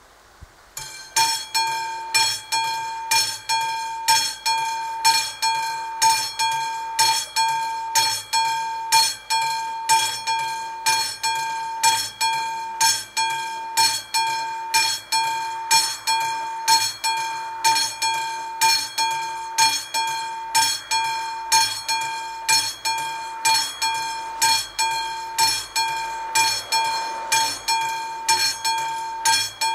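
AŽD 71 level-crossing warning signal's classic mechanical bell starts about a second in and rings steadily at about two strikes a second, each strike ringing on. It is the crossing's warning that a train is approaching.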